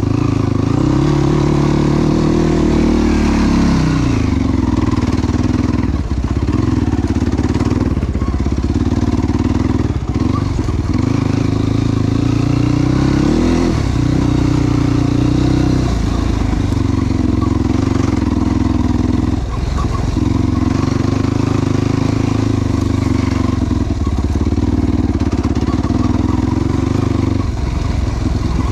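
Yamaha YFZ450 sport quad's single-cylinder four-stroke engine running hard while riding, its pitch rising and falling through throttle changes and gear shifts. The note dips briefly every few seconds.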